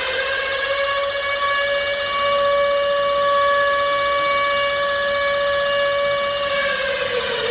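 Civil defense siren sounding an attack warning: one long wail that reaches its top pitch at the start, holds it steady for several seconds, then begins to fall near the end.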